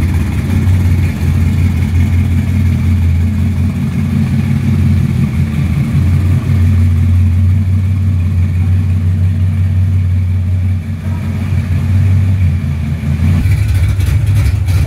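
The 1969 Dodge Super Bee's 440 Six Pack V8 idling steadily with a loud, deep exhaust note after a cold start.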